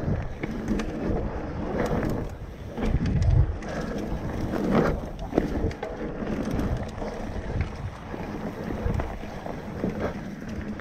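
Mountain bike riding over a dirt trail: tyre rumble with irregular rattles and knocks from the bike, and wind buffeting the microphone. A heavier low thump about three seconds in.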